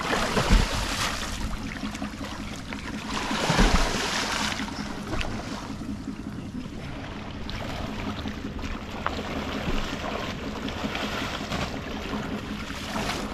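Water splashing and sloshing as people wade chest-deep through a flooded paddy channel, with louder splashes about half a second in and again around three and a half seconds in.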